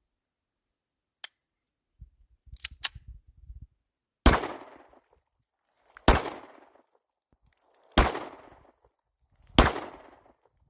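Four single handgun shots spaced roughly two seconds apart, each with a short rolling echo, after a few sharp clicks.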